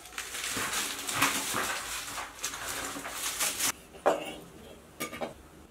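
Dry straw and a broom rustling and scraping across a floor in uneven strokes, then a short whining cry about four seconds in.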